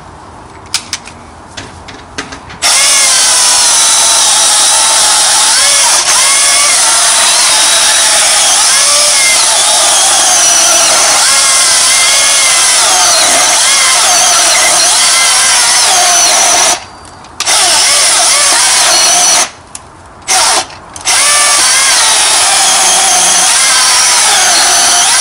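Milwaukee M18 cordless electric chainsaw cutting through a large log. After a few light clicks, the motor starts about two and a half seconds in and runs under load, its pitch wavering as the chain works through the wood. It stops briefly twice late on, then runs again.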